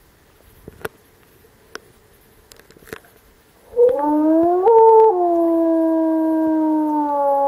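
A few faint clicks, then a single wolf howl starting about four seconds in. It rises, jumps briefly higher, then drops and settles into one long, steady held note.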